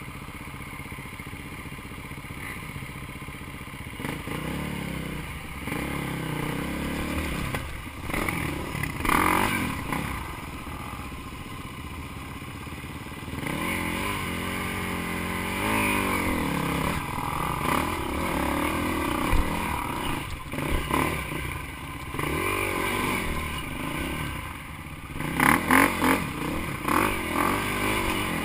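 Dirt bike engine running at low revs, then revving up and down as the bike climbs a steep, rutted dirt trail under load, with a cluster of sharp loud blips near the end.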